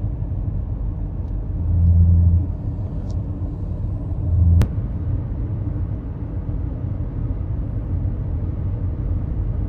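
Car road noise heard from inside the cabin: a steady low rumble of engine and tyres, with two brief louder low hums about two and four and a half seconds in and a sharp click right after the second.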